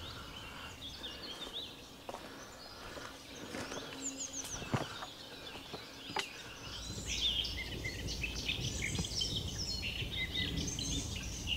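Wild birds singing and chirping in spring woodland, several birds at once, with the song growing denser in the second half. Two sharp clicks stand out in the middle.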